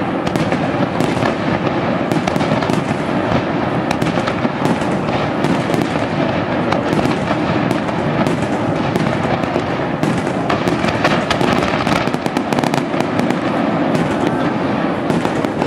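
A sustained barrage of fireworks: many shells bursting in quick succession, a dense, continuous run of bangs and crackling with no let-up.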